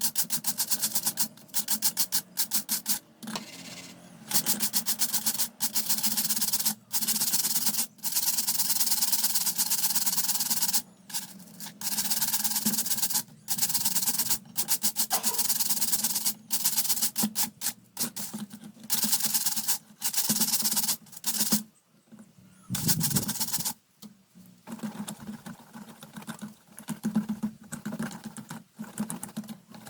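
Rapid back-and-forth scrubbing strokes on the fan's parts during cleaning. They come in runs broken by short pauses, with a longer pause a little after twenty seconds in.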